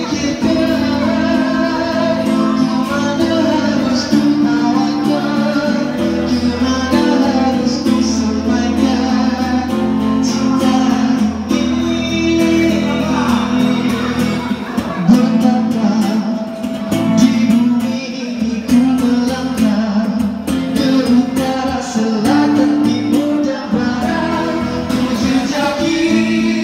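A song sung to acoustic guitar accompaniment, the voice carrying the melody over the guitar throughout.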